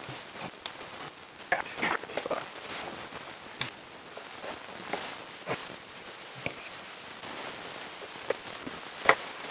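Irregular light clicks and taps of a screwdriver and small screws against the metal case of a Bitmain power supply as its screws are driven back in.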